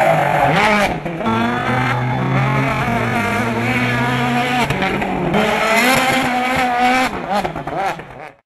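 Citroën DS3 WRC rally cars' 1.6-litre turbocharged four-cylinder engines revving hard as they pass at speed, the pitch climbing and dropping through gear changes. The sound changes abruptly twice, about a second in and about five seconds in, and fades out near the end.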